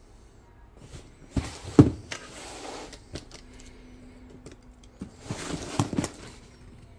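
Cardboard shipping box handled and turned over on a wooden table: rustling and scraping of cardboard with several knocks as it is set down, in two bouts, about a second in and again about five seconds in. The loudest knock comes a little under two seconds in.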